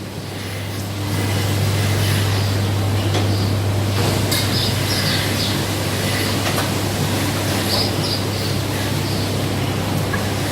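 Rotary milking parlour machinery running: a steady low hum under a rolling, rumbling noise, with a few brief higher-pitched sounds about four seconds in and again near eight seconds.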